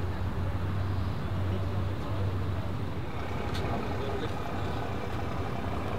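Dodge Charger SRT Hellcat's supercharged V8 idling steadily through a Vicrez aftermarket exhaust, a deep even note with no revving.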